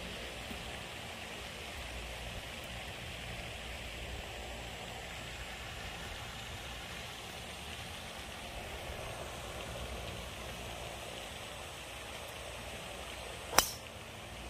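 Steady outdoor background hiss, then, near the end, a single sharp crack of a golf club striking the ball on a tee shot.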